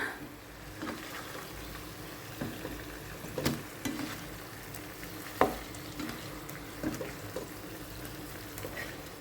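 Food sizzling in a wok as it is stir-fried, with a spatula now and then knocking and scraping against the pan.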